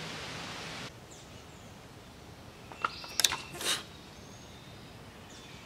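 A steady hiss for about a second, then faint bird chirps and a quick cluster of sharp clicks with a short rattle about three seconds in: a metal snap carabiner being handled on heavy monofilament line.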